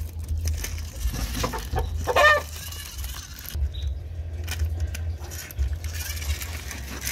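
A chicken clucking once, about two seconds in, over scattered clicks and scrapes of a small plastic toy monster truck being pushed over rocks.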